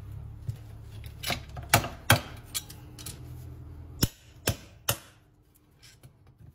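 Sharp taps and clicks of farrier's tools against a shod horse hoof on a metal hoof stand, about nine in all, the loudest a little under two seconds in and just after two seconds, and three more evenly spaced near the end, over a low hum that stops about two-thirds of the way through.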